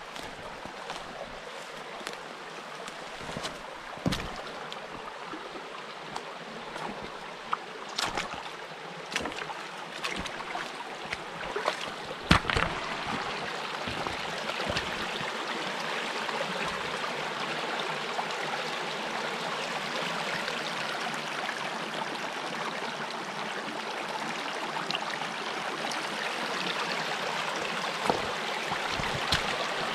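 Shallow mountain stream running over rocks: a steady rush of water that grows louder about halfway through. In the first half there are a few short low thumps.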